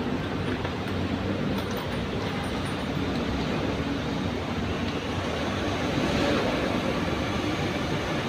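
Steady mechanical background noise, a constant rumble and hiss with no sharp events.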